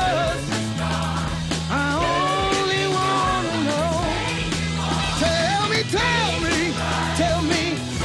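Rock-musical song with a male lead vocal over a band: steady bass and drums, the voice holding long notes and bending them.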